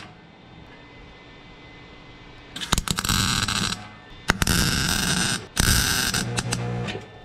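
Electric welder striking an arc in three short bursts about a second long each, starting sharply with a click and carrying a low hum under the hiss, with a faint steady background between the bursts.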